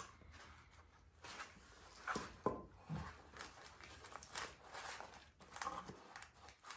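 Faint handling noises as an angle grinder and a steering box on wooden blocks are moved into position: scattered clicks, rustles and light knocks, with no power tool running.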